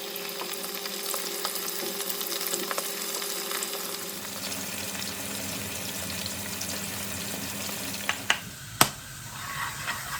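Food sizzling and crackling as it fries in oil in a pan, with a few sharp clicks, like a utensil knocking the pan, about eight seconds in.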